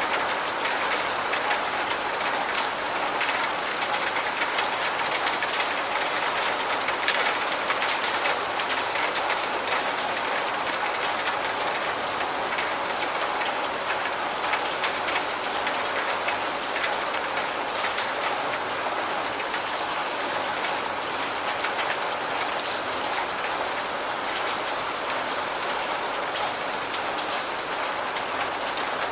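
Steady rain falling, a dense hiss of countless drops with individual drop hits ticking through it.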